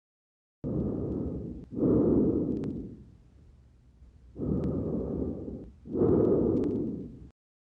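Normal lung breath sounds heard through a stethoscope on the front of the chest: two full breath cycles. Each cycle is a low rush of air followed at once by a second, louder one, with a short pause between the two cycles.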